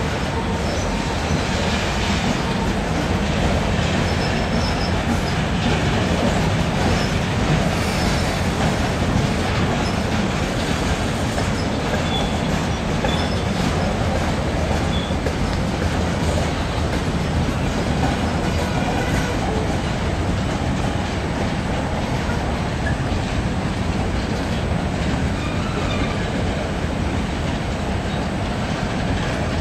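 Freight cars of a Norfolk Southern train rolling past over a steel trestle: a steady rumble and clatter of steel wheels on the rails, with brief faint wheel squeals now and then.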